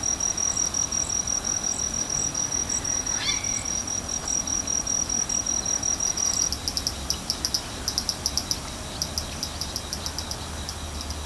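Insects singing at dusk: a steady, high-pitched trill, then after about six seconds a rapid, pulsed chirping in quick groups. A brief falling note sounds about three seconds in.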